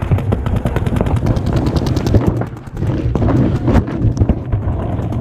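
Paintball markers firing fast strings of shots, a rapid crackle of many shots a second, with a brief lull about two and a half seconds in.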